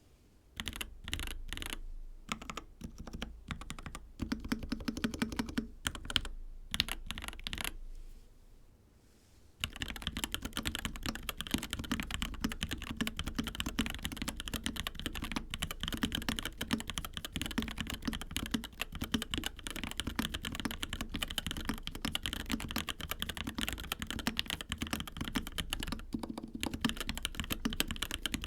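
Epomaker EK68 mechanical keyboard with Gateron Yellow linear switches being typed on: scattered keystrokes and short runs for the first eight seconds or so, a brief lull, then continuous fast typing.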